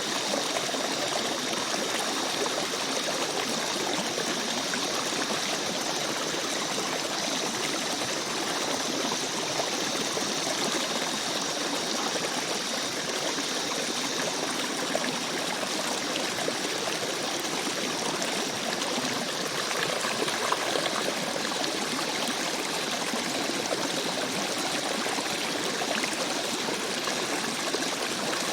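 Rainforest stream running steadily, with water trickling and splashing. A faint high steady tone sits above the water in the first half and fades out about halfway through.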